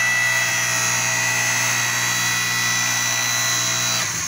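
Electric motor and hydraulic pump of a converted 6-ton electric log splitter running with a steady hum and high whine, shutting off about four seconds in.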